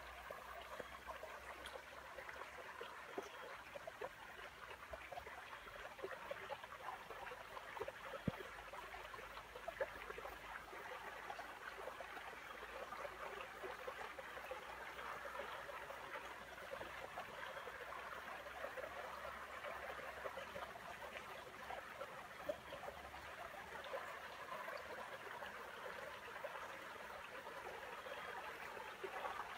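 A small stream trickling and babbling steadily, with a few faint clicks now and then.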